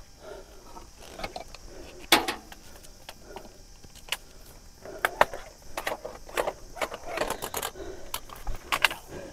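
Irregular clicks, knocks and rattles of a telescopic landing-net pole and frame tapping and scraping against rocks as it is poked at a released black sea bream, with one sharper knock about two seconds in.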